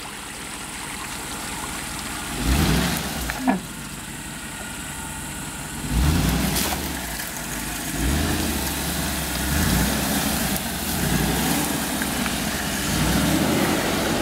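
Mercedes-Benz G-Class V8 engine pulling through mud and grass, its revs rising in repeated surges. There is a sharp knock about three and a half seconds in.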